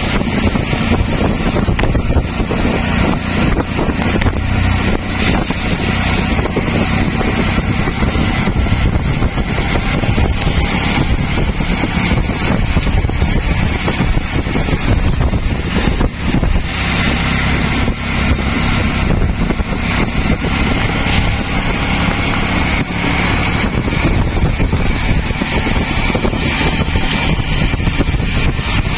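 Steady running noise from inside a moving CNG auto-rickshaw: its small engine and tyre hiss on a wet road, with wind on the microphone.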